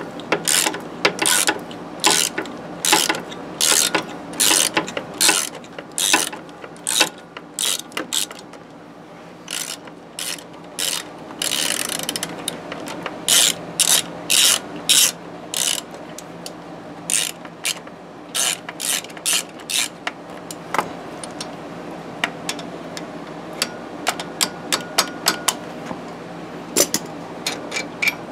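Socket ratchet wrench on a long extension clicking in short runs, over and over, as a front-suspension bolt is worked loose.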